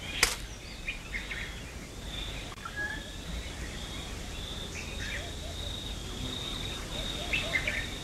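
Common kingfisher knocking its prey against a branch, one sharp knock about a quarter-second in. Short bird chirps scattered over a steady high hum and a low rumble of outdoor ambience.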